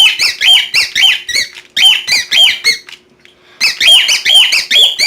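Guinea pig wheeking: a run of loud, high squeals, each rising and then falling in pitch, about two or three a second, with a short pause a little past the middle.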